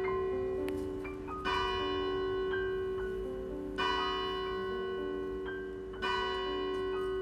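A church bell tolling three strokes a little over two seconds apart, each ringing on and fading. Softer musical notes and a held tone run underneath.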